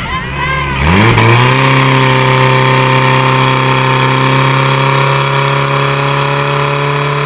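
Portable fire pump's engine revving up sharply about a second in, then held at high throttle and running steady while it pumps water to the hose lines.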